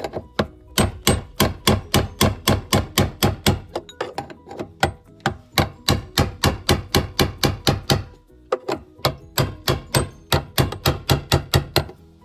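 Hammer tapping on a screwdriver set against the fuel pump lock ring of a BMW E60 fuel tank, a quick steady run of sharp knocks about three to four a second with a short break about two-thirds of the way through. The taps drive the ring round to tighten it and make sure the pump assembly is properly secured.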